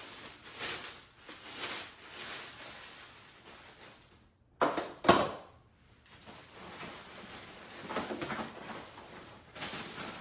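Packaging and high-chair parts being handled during unboxing: rustling and scraping, with two sharp knocks about halfway through.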